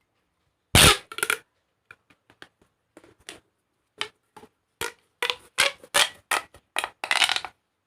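Corrugated plastic pop tubes being stretched and squashed, crackling: a loud pop just under a second in, then a string of sharp clicks and crunches that come thicker near the end.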